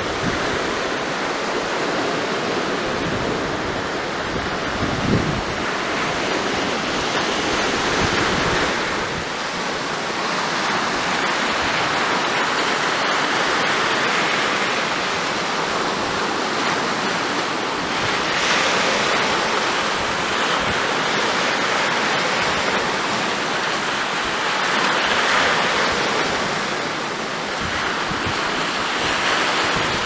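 Baltic Sea waves breaking and washing over the boulders and pebbles of a stony beach, surging in rising and falling swells every few seconds. Wind buffets the microphone, with one low gust about five seconds in.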